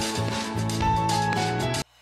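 Background music: a melody of held notes over a light beat, cutting out for a moment near the end.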